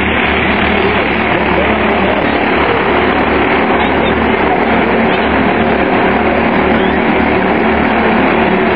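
Minicup race cars' engines running at speed around an oval track, a steady loud sound with no break.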